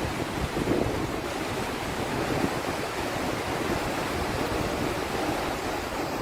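Floodwater rushing fast and steady, with wind buffeting the microphone.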